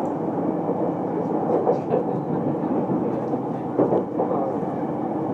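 Yamanote Line E231-series commuter train running, heard from inside the car: a steady rumble of wheels on rail, with a few short knocks about four seconds in.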